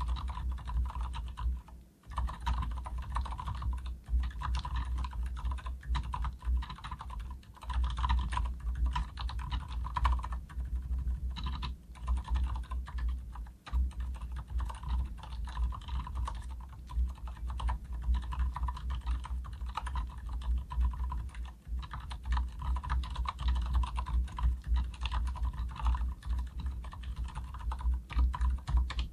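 Fast, continuous typing on a Leopold FC900R full-size mechanical keyboard with Cherry silent red switches, with dampened keystrokes and brief pauses about two seconds in and again near the middle. The unlubricated stabilizers add a faint metallic pinging.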